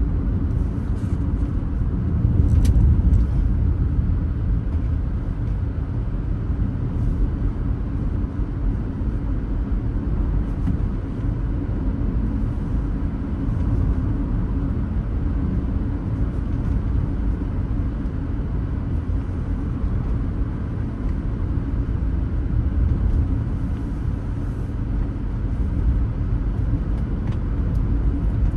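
A car driving along the road, heard from inside the car as a steady low rumble of engine and tyre noise.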